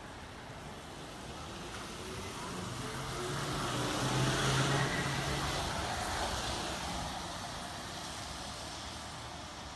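Trolleybus passing close by: a low electric hum and tyre hiss on the wet road rise to their loudest about halfway, then fade as it drives away.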